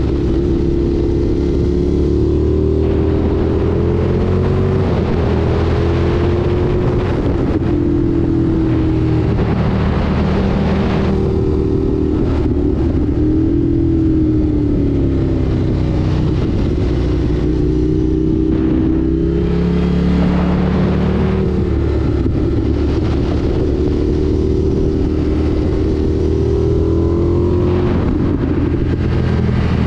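Indian FTR 1200 S motorcycle's V-twin engine running under way, its revs rising and falling again and again.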